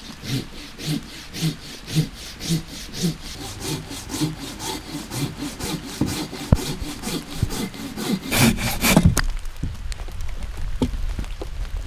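Hand saw cutting through wood in steady back-and-forth strokes, about two a second, with a louder, denser stretch of rasping about eight seconds in, followed by a few scattered knocks.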